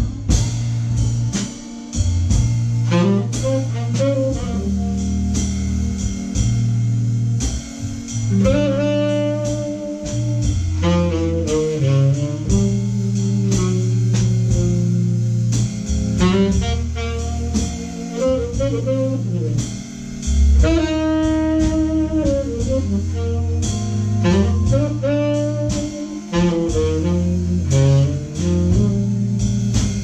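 Live blues-jazz quartet: a tenor saxophone plays melodic phrases with short breaks over electric guitar, Hammond organ and drums.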